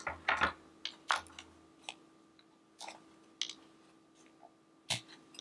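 Light, scattered clicks and taps of diamond-painting coasters being handled: lifted out of a wire coaster stand and moved about on a table, with one louder knock near the end.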